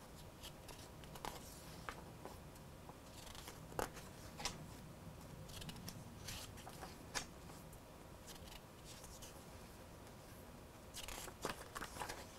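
Pages of a paper product manual being handled and turned: faint, scattered paper rustles and flicks, with a quick flurry of page flipping near the end.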